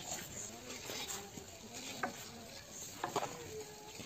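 Small plastic toy car's wheels rolling and scraping over rough concrete: a faint gritty rustle with a few small clicks about two and three seconds in.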